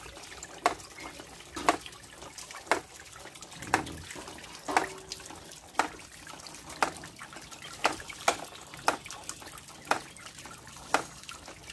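Water trickling and splashing through a pump-fed PVC-pipe miniature waterfall, with a sharp click about once a second from its water-driven moving parts.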